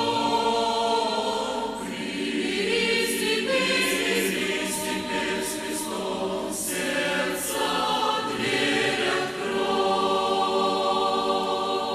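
Choir singing a Christian hymn, many voices together with clear sung words, settling into long held chords in the last few seconds.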